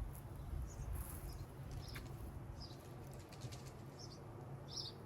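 A small bird chirping repeatedly, short high chirps coming every half second to a second and growing more frequent near the end, over a steady low rumble.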